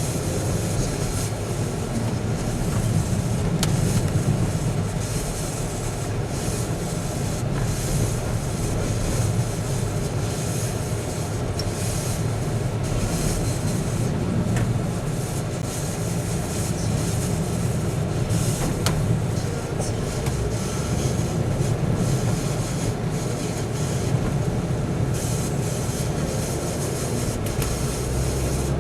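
Steady rumble of a moving road vehicle heard from inside, engine and tyre noise with occasional light rattles.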